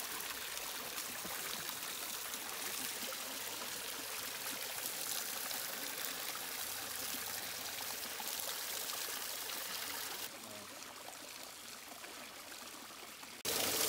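Hot spring water running and trickling steadily from its source. The flow sound turns quieter about ten seconds in, then louder again just before the end.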